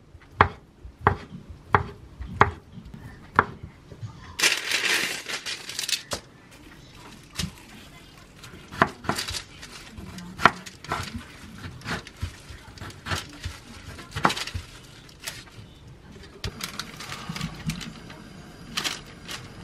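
Kitchen knife cutting cooked chicken breast on a wooden cutting board: about five even knocks of the blade on the board, then a brief rustle, then sparser, scattered knife knocks as radish kimchi is cut.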